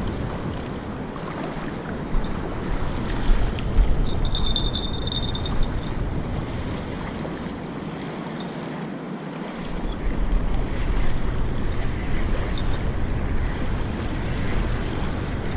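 Wind buffeting the microphone, a gusty low rumble that drops away briefly twice, over small waves lapping at the shoreline. A short high-pitched tone sounds about four seconds in.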